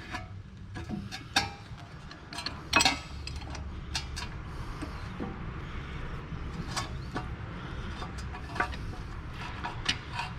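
Scattered metallic clicks and clinks from a C-clamp and an old brake pad being worked against a brake caliper to press its piston back in; the loudest click comes nearly three seconds in.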